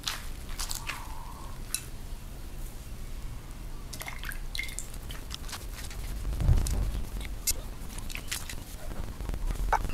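Wet squishing and dripping of a runny aloe vera and egg hair mask, worked by hand from a bowl into long hair, with scattered small clicks and a low bump about six and a half seconds in.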